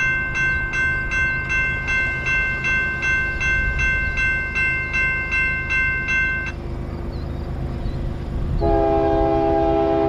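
Railroad grade-crossing bell ringing in steady, rapid strokes, stopping about two-thirds of the way in. Near the end an approaching diesel freight locomotive sounds its multi-note chord horn in one long held blast.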